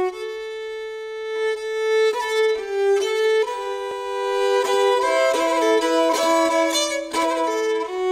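Instrumental music led by a bowed fiddle: a slow melody in two parts, a tune moving over a lower held line, notes changing about every half second to a second, some long notes wavering with vibrato.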